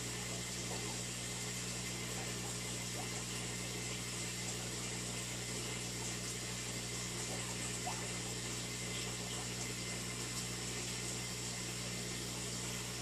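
Aquarium pump running with water moving in the tank: a steady low hum under a constant soft wash of water.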